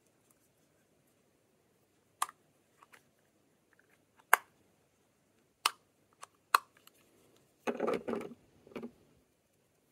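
Lip balm tubes and their packaging being handled: several sharp plastic clicks spaced a second or so apart, then a short rustle near the end.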